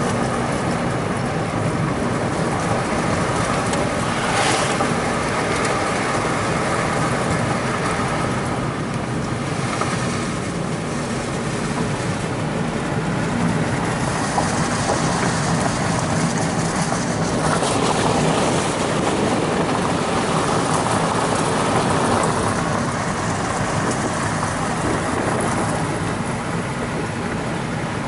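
A car being driven along a road: steady engine and tyre noise.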